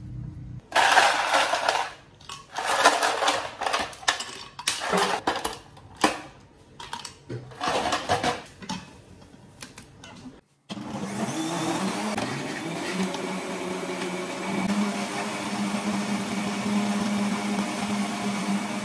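Countertop blender chopping papaya chunks in a series of short bursts of about a second each. It then runs steadily, pureeing the fruit with an even motor hum.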